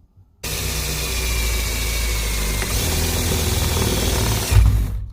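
Handheld power drill running at speed, drilling holes for rivets to fix the panels. It starts abruptly about half a second in and cuts off sharply near the end.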